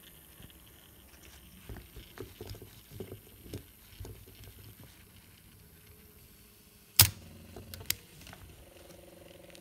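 Grundig CB 100/E cassette tape drive being handled: light knocks and rattles from its metal chassis, then about seven seconds in a sharp loud clack of a piano key being pressed and a second smaller click. Near the end the drive's motor starts running with a steady hum.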